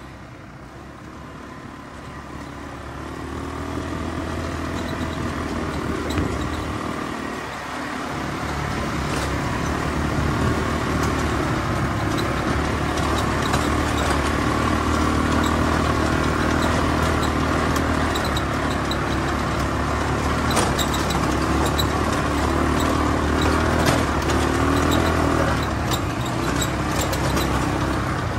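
ATV engines running as a group of quad bikes rides along a dirt track, growing louder over the first few seconds and then holding steady, with scattered light clicks and rattles.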